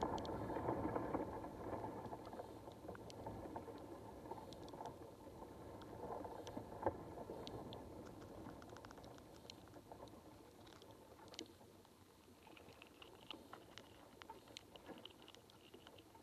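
Underwater ambience picked up by a submerged camera. A muffled rushing of water is loudest at the start and fades over the first few seconds, with scattered small clicks and ticks throughout and a faint high whine near the end.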